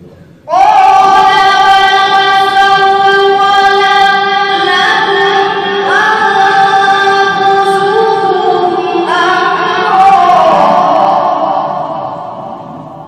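A reciter's voice chanting Quran recitation (qirat) in the melodic tajweed style. It is one long phrase on drawn-out notes that step up and down in pitch several times, starting abruptly about half a second in and fading out near the end.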